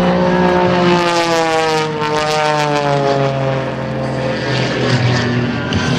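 Extra 300S aerobatic plane's piston engine and propeller droning, the pitch falling steadily through the first four to five seconds.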